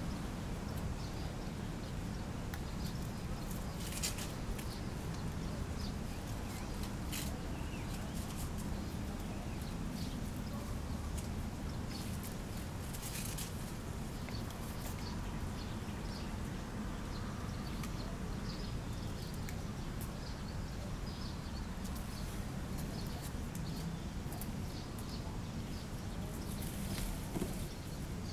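Steady low outdoor rumble with scattered faint high chirps and a few short rustling clicks.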